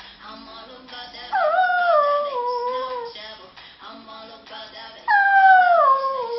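Yorkshire Terrier howling along to a pop song: two long howls, each starting high and sliding down in pitch, the first about a second in and the second near the end.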